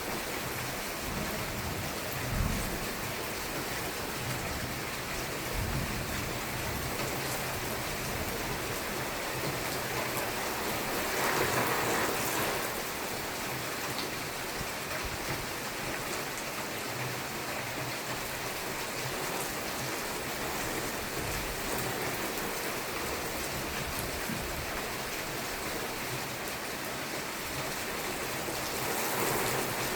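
Steady rain falling in a thunderstorm, with a short low thud about two seconds in and a brief surge of louder rain near the middle.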